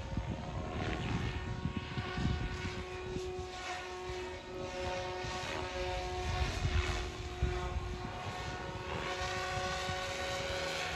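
SAB Goblin 500 electric RC helicopter in flight: a steady whine from the motor and drive gears, with the rotor blades swishing and the sound sweeping and swelling as it manoeuvres.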